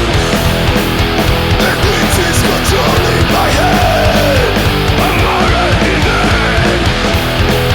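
Punk rock band recording: distorted electric guitars and bass over drums, loud and steady throughout.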